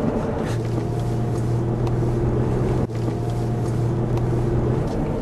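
Engine and road noise of a moving car heard from inside the cabin: a steady low drone, with a momentary dropout a little under three seconds in.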